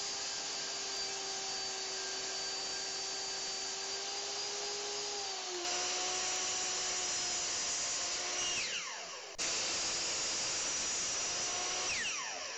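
A table saw runs steadily while cutting a wood block. Then a 12-inch compound miter saw runs and winds down twice, its whine falling in pitch each time the motor coasts to a stop.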